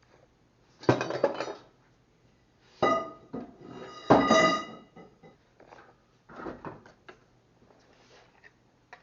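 Metal tools and parts clanking on a workbench: three loud clanks that ring briefly, about a second, three seconds and four seconds in, then a softer rattle and a few light taps.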